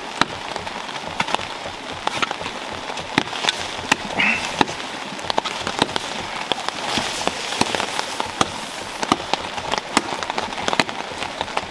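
Rain falling on a tarp and a waterproof poncho: a steady patter with many sharp, irregular taps of drops.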